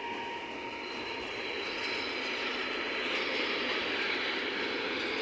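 Container freight train hauled by a Mercitalia Rail E.494 electric locomotive passing close by, with a steady rumble of wheels on the rails that grows a little louder about two seconds in.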